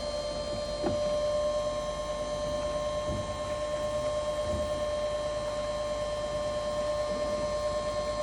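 Steady machine whine held at one pitch with fainter overtones, with a few faint knocks.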